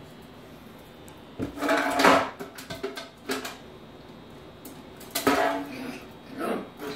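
A small hard object skittering and rattling across a tile floor in four bursts as a small dog bats and chases it.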